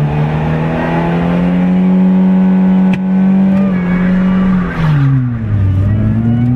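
MINI's engine heard from inside the cabin as the car launches from a standing start at the flag: revs climb and hold high, with a brief click about three seconds in, then drop sharply about five seconds in and climb again.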